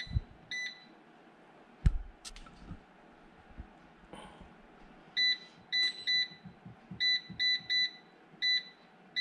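Cosori air fryer's touch control panel beeping, one short high beep for each button press as the temperature and timer are set. There are two beeps at the start, then a quick run of about ten from midway on. A single dull thump about two seconds in.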